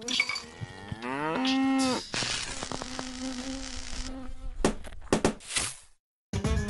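Cow mooing in drawn-out calls that bend in pitch, followed by a steady hiss, a few sharp clicks, and a sudden cutoff.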